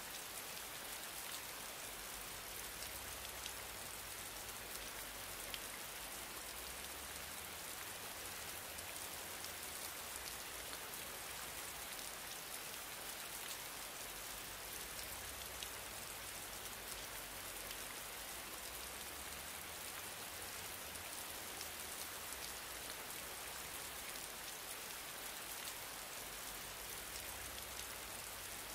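Steady, faint hiss of recording background noise, with a few faint clicks scattered through it.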